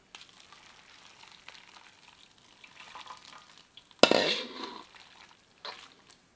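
Spicy lamb and shrimp hotpot broth cooking in a pan while being stirred, a faint bubbling sizzle. About four seconds in comes a sudden louder clatter of cookware that rings briefly, and a shorter one just before the end.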